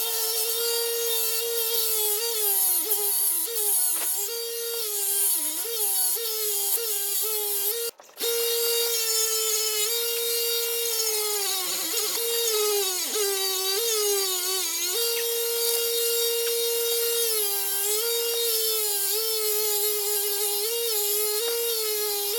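Electric power tool motor running with a steady whine that sags in pitch again and again and then recovers, as the work is pressed against it and loads the motor. The sound cuts out briefly about eight seconds in.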